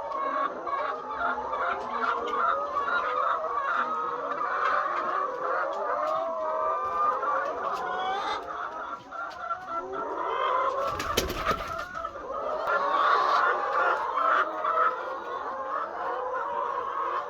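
A large flock of laying hens clucking, many overlapping calls at once, with a brief sharp noise burst about eleven seconds in.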